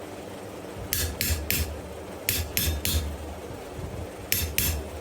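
Hammer striking a steel punch to drive eye holes through hot wrought iron: eight sharp metallic strikes with a short ring, in three quick groups of three, three, then two.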